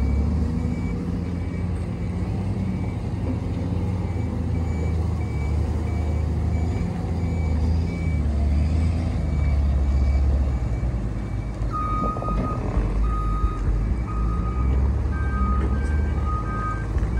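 Caterpillar 930H wheel loader's diesel engine running and rising and falling in revs as the machine drives and works its bucket. Reversing alarms beep on and off over it: a higher-pitched one for the first half, then two lower-pitched ones from about twelve seconds in.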